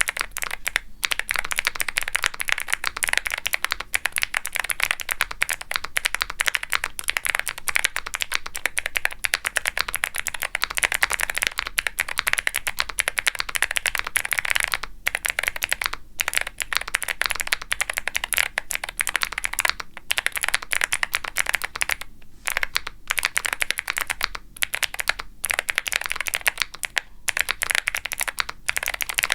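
Fast, continuous typing on a Womier SK75 mechanical keyboard with Gateron Melodic clicky switches, a polypropylene plate and double-shot ABS keycaps. Each keystroke gives a crisp click followed by a deeper pop at bottom-out, with a few brief pauses in the typing.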